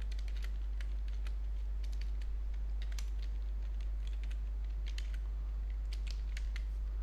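Computer keyboard keystrokes: irregular clicks of someone typing, over a steady low hum.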